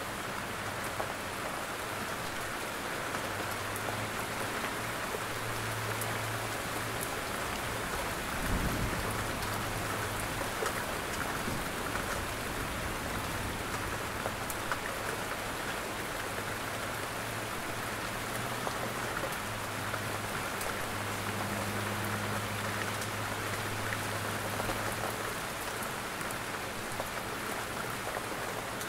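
Steady rain sound, an even hiss of rain falling on a surface, with a faint low hum that comes and goes and one dull thump about a third of the way through.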